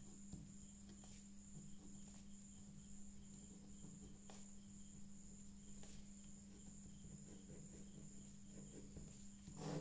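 Near silence: a steady low hum and a faint, steady high-pitched tone, with faint ballpoint-pen scratching on paper and a few soft clicks.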